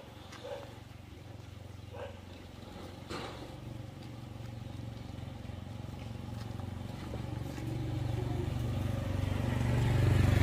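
A motor engine running steadily with a low hum, growing louder over the last few seconds. A few faint knocks are heard in the first seconds.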